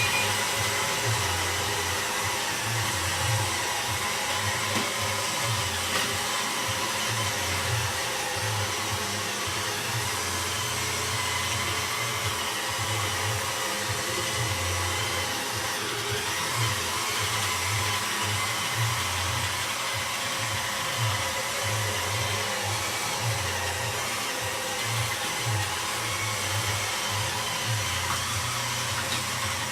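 Roomba robot vacuum running: a steady whirring hum of its motors and brushes.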